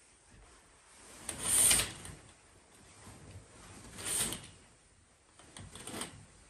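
Heavy curtains being drawn open along a track, the runners sliding and scraping in three swishes; the loudest is about a second and a half in, and the others come at about four and six seconds.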